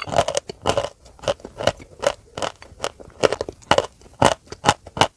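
Close-miked chewing of crunchy white chalk: a steady run of sharp crunches, about two to three a second.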